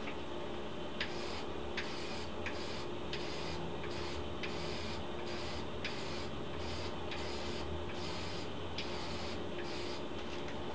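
Aerosol can of Dupli-Color clear wheel coating spraying in repeated short bursts of hiss, many starting with a sharp click, over a steady background hum.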